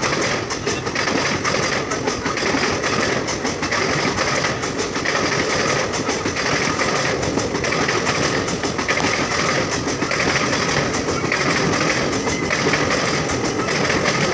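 Passenger express coaches rolling past at speed on a station through-line, with a continuous rumble of steel wheels on rail and a rapid clatter over the rail joints.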